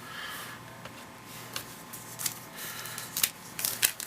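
Baseball cards being handled and flipped: soft rustling with a few sharp card clicks, more of them in the second half.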